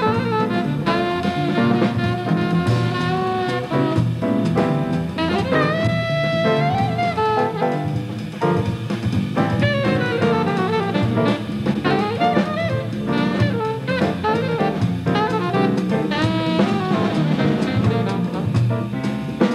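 Alto saxophone playing fast bebop lines over a jazz rhythm section of piano, double bass and drum kit.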